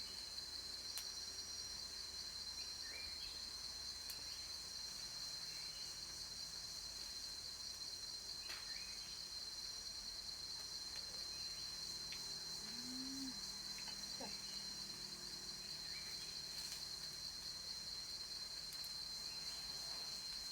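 Cicadas droning steadily, one continuous high-pitched buzz.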